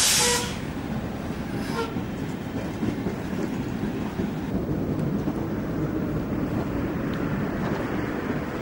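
Škoda 14Tr trolleybuses on the move, giving a steady running rumble of tyres and electric drive. A short loud hiss comes right at the start.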